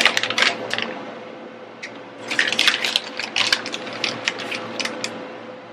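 Plastic film and packaging crinkling and rustling in short, irregular bursts while an empanada is filled with shredded cheddar, over a steady low hum.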